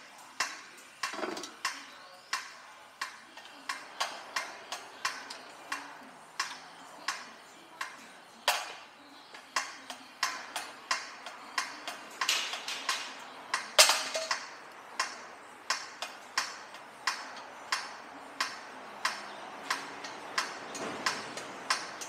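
Socket ratchet clicking in short, steady strokes, about two clicks a second, with a few louder clicks along the way.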